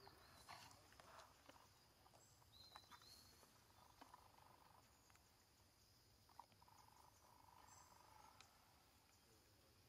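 Near silence: faint forest ambience with a few soft ticks and a short, high chirp about two and a half seconds in.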